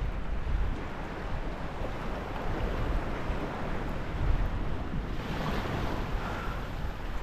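Wind buffeting the microphone over choppy water, a steady rushing noise with a low rumble. It turns brighter and hissier for a moment about five seconds in.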